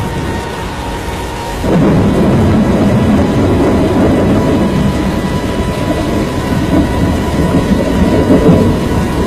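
Strong storm wind buffeting the microphone, with rain: a loud, continuous rushing noise that jumps louder about a second and a half in.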